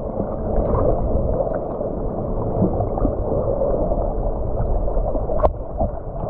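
Muffled underwater water noise: a steady rush and gurgle of water with a low rumble under it, dull with no treble, and one sharp click about five and a half seconds in.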